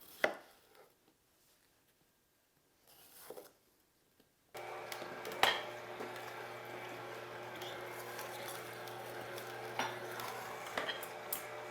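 An electric blender motor starts running about four and a half seconds in and keeps up a steady hum while it grinds vegetables into juice. Light clinks of dishes and utensils sound over it, and another clink comes right at the start.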